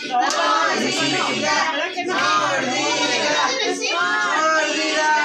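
Several people singing a birthday song together for the girl before she bites the cake.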